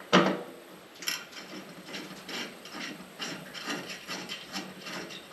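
Hand ratchet clicking in short repeated strokes, about two to three a second, as a bolt is run in on the fuel cell's sump mounting plate. A sharper knock comes right at the start.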